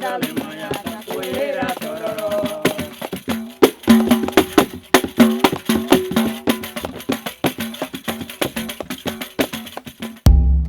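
Music: singing over rhythmic percussion with a dense rattling beat. The voices drop out after about three seconds, leaving the percussion. A heavy low thud comes just before the end.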